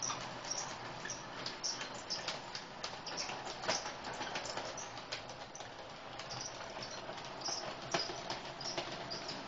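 Model diesel locomotive running along the track with a train of empty beet wagons: a steady running hum under a quick, irregular clicking of wheels over the rail joints, with a sharper click about a third of the way in and again near the end.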